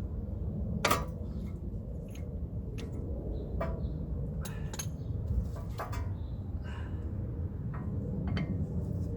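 Scattered light metallic clicks and clinks from the tool on the brake caliper as its piston is slowly pushed back in, about ten in all, the sharpest about a second in, over a steady low background rumble.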